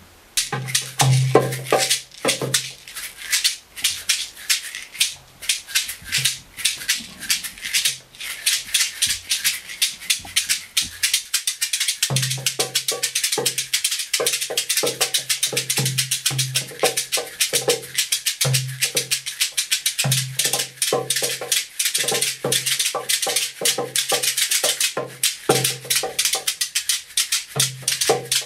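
Musicians jamming: a fast, steady rattling percussion rhythm runs throughout, joined by a low, pulsing bass part that drops out after a couple of seconds and comes back about twelve seconds in.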